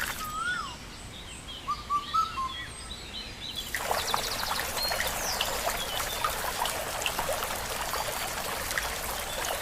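Birds chirping, then from about four seconds in a steady trickling, pouring hiss with scattered small clicks.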